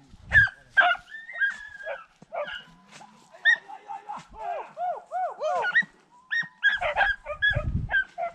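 A pack of hunting beagles yelping and baying excitedly, many short rising-and-falling cries overlapping several times a second, over a rabbit the dogs have caught or cornered. A low rumble comes in near the end.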